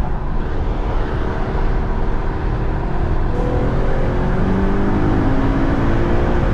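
Acura TL V6 with an RV6 J-pipe and high-flow cats pulling under acceleration, its engine tone climbing steadily in pitch through the second half, over a loud steady rush of road and wind noise.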